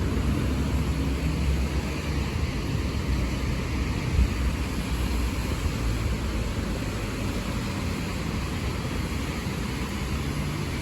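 Road traffic: a vehicle engine running with a steady low rumble under an even hiss, with one brief knock about four seconds in.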